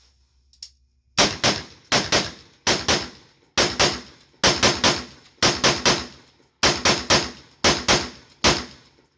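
10.5-inch AR-15 pistol firing 55-grain .223 rounds from an Amend2 20-round magazine: a string of sharp shots in quick pairs and triples, starting about a second in and stopping near the end. The gun runs without a stoppage.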